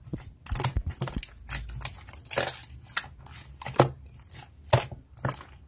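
Hands squeezing and kneading a thick white slime, giving irregular sticky squelches with small crackling pops and a few louder snaps.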